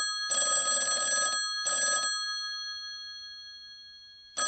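Telephone bell ringing: three quick rings in the first two seconds, the bell tones fading slowly afterwards, then a fresh ring starting near the end.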